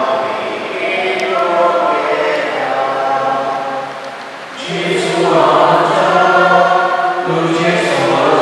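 Choir singing a slow hymn in long held notes. A little over four seconds in, the singing swells louder as lower voices come in.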